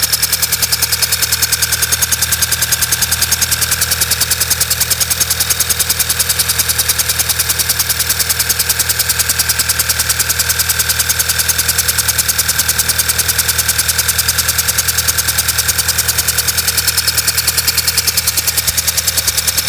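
Volkswagen Passat B6 engine idling roughly with a steady, regular pulsing, typical of an engine misfire.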